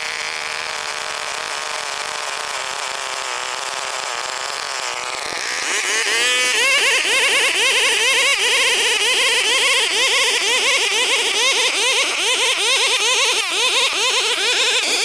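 Old chainsaw engine running steadily, then about six seconds in it gets louder and its pitch starts wavering quickly up and down as it cuts under load into Borneo ironwood.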